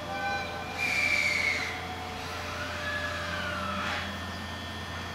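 Steel train wheels squealing on the rails as an electric train rolls slowly through a rail yard: a few high, drawn-out squeals, the loudest falling in pitch about a second in and another rising and falling later, over a steady low hum.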